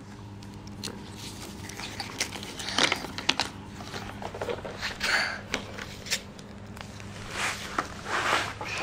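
A baby handling a cardboard jigsaw puzzle board and pieces: scattered soft clicks and scrapes, with wet mouth sounds as she sucks on her fingers.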